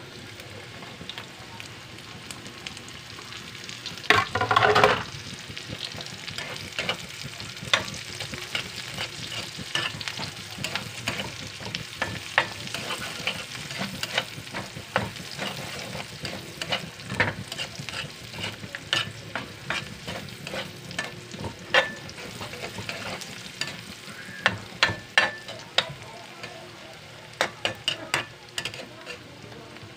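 Chopped vegetables sizzling in oil in a pan while a metal spatula scrapes and taps against the pan. There is a louder burst about four seconds in and a quick run of sharp taps near the end.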